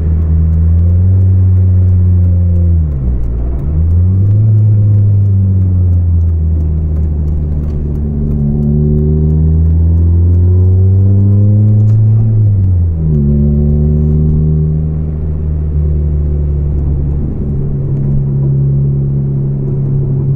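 Volvo 440's engine running through a broken, leaking exhaust that gives it a loud, deep note. It climbs in revs, drops at a gearshift about three seconds in, pulls up slowly through a long stretch, drops again at a second shift about thirteen seconds in, then holds a steady cruise.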